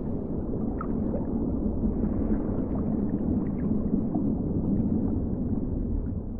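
Muffled underwater noise, as heard by a submerged camera: a steady low rushing with faint scattered clicks, fading near the end.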